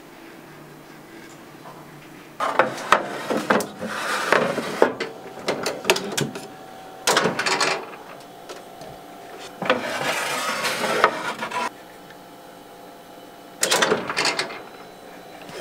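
Metal baking tray being handled and slid into an oven: four bursts of scraping and clatter with sharp clicks, and a faint steady hum from about halfway through.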